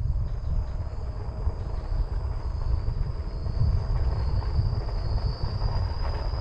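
Riding noise from a Ninebot ES2 electric kick scooter: wind buffeting the microphone and a low rumble from the road, with a thin steady high whine.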